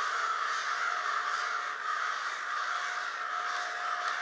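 A large flock of crows, on the order of a hundred, cawing all at once in a continuous, loud din.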